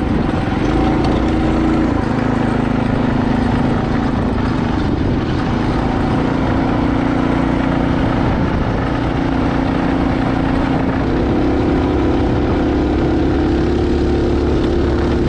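Mini bike's small engine, driving through a torque converter, running steadily under load while riding; its pitch steps up about six seconds in and again about eleven seconds in as it speeds up.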